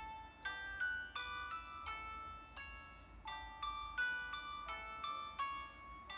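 Built-in ringtone of a Samsung Anycall SCH-W200 phone: a melody of sharply struck notes that ring and fade, a few notes a second.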